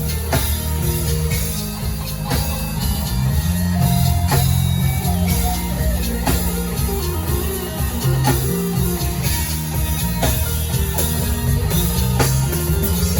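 Live worship band playing an instrumental passage: electric guitar over a drum kit and a prominent moving bass line, with a strong drum hit about every two seconds.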